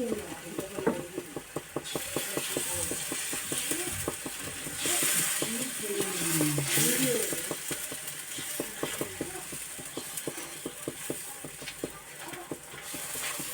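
Food sizzling as it fries in hot oil in a pan, with a quick run of clicks and scrapes from a utensil stirring against the pan. The sizzle grows louder about two seconds in and eases off near the end.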